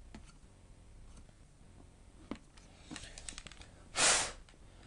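Faint clicks and light taps of laptop parts being handled. About four seconds in comes one short, louder breathy rush of air.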